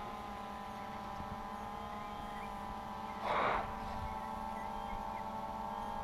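DJI Phantom 2 Vision Plus quadcopter's motors and propellers humming steadily in flight, a stack of steady tones. A short rush of noise comes about three seconds in.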